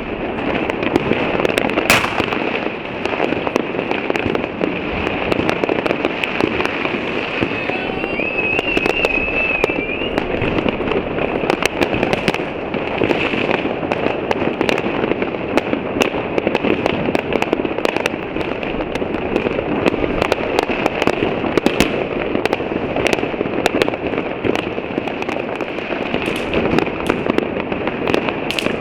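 Dense fireworks and firecrackers going off without a break, many bangs and crackles overlapping at once. A brief wavering whistle rises above them about eight seconds in.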